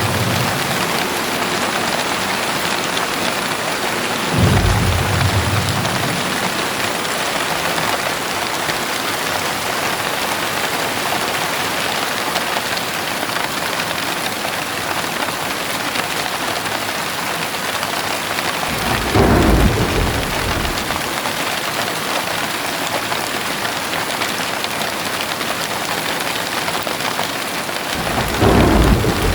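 Heavy rain falling steadily, with three short rolls of thunder: one about four seconds in, one past the middle and one near the end.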